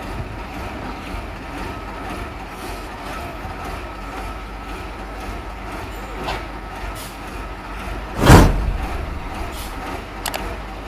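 Heavy diesel machinery running steadily with a low rumble on a concrete pour. One loud, short burst of noise comes about eight seconds in.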